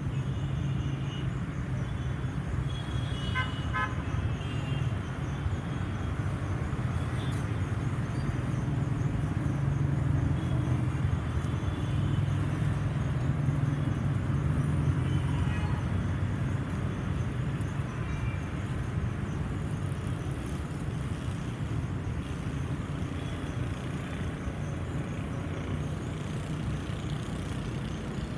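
LG air conditioner outdoor unit running, its fan giving a steady low hum. A short run of high pitched beeps or toots sounds about three to four seconds in.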